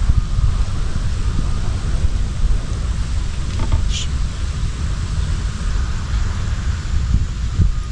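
Wind buffeting the microphone: an uneven low rumble with a faint hiss over it, and one brief higher-pitched sound about four seconds in.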